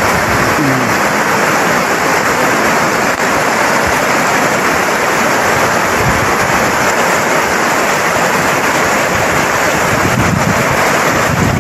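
Swift river current rushing: a steady, loud wash of water noise.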